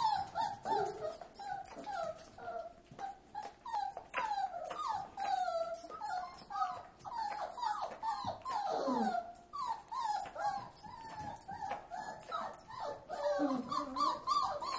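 Young Giant Schnauzer puppy whimpering and squeaking as it feeds from a bottle: many short, high calls that fall in pitch, coming in quick succession.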